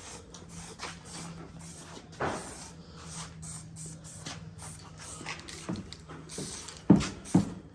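Aerosol spray paint can hissing in many short bursts, over a steady low hum that stops near the end; two sharp knocks come just before the end.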